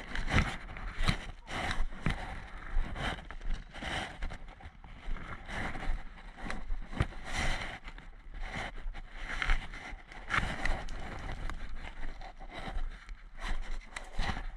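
Footsteps crunching on dry leaf litter and twigs, about one step a second, with rustling of clothing and gear.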